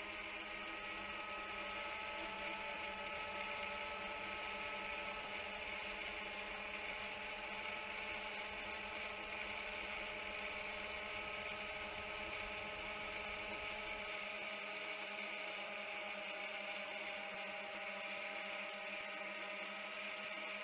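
Chimera 7 long-range FPV quadcopter's motors and propellers running in a steady climb: a constant hum and whine of several held tones over a hiss.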